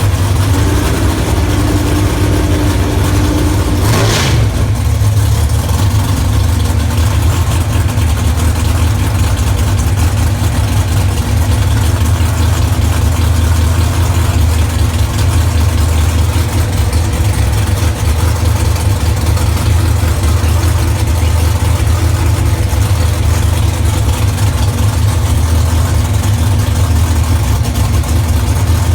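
604 cubic-inch Mopar big-block V8 in an ex-Pro Stock Dodge Stratus idling loudly and steadily. About four seconds in, a single brief sharp crack cuts across the idle.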